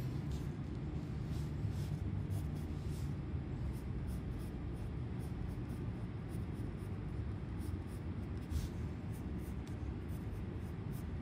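Pencil scratching on paper in short, irregular sketching strokes, over a steady low hum.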